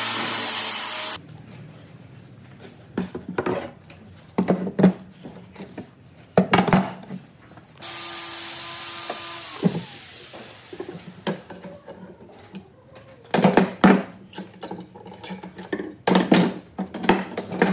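Power tool running and cutting off about a second in, then scattered knocks and clatter of tools and wood being handled. Near the middle a second power tool runs for about two seconds and winds down as it stops, and more knocks follow.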